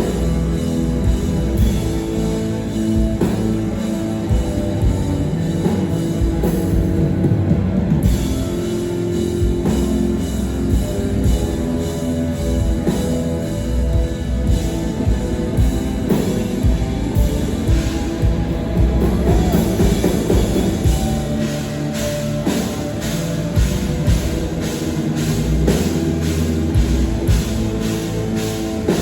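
Live rock band playing loud, with drum kit and guitar. The drums keep a steady beat that turns quicker and more even in the last several seconds.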